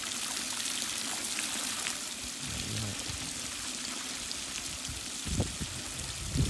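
A garden hose nozzle on its jet setting, its thin stream of water splashing into a swimming pool as a steady spatter and hiss. A few brief low thuds come near the middle and end.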